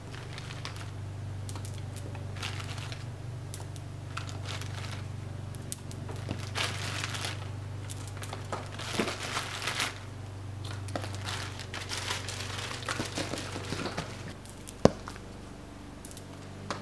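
Rustling and crinkling handling noise, busiest in the middle, with one sharp tap near the end, over a steady low hum.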